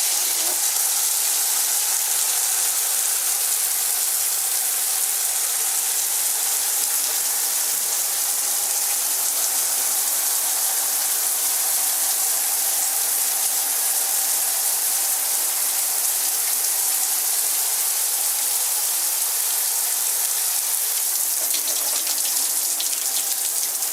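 Water spraying steadily from a high-pressure plastic multi-nozzle shower head running at full flow, a constant hiss.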